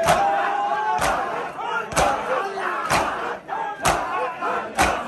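Matam: a crowd of mourners beating their bare chests with open hands in unison, six sharp slaps about a second apart. Between the strikes, men's voices call out together.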